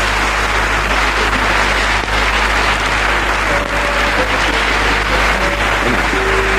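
Concert audience applauding steadily after a song, with a steady low hum underneath.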